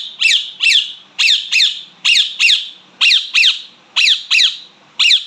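Pet parrot giving shrill chirping calls in pairs, about one pair a second, each call a quick downward sweep in pitch.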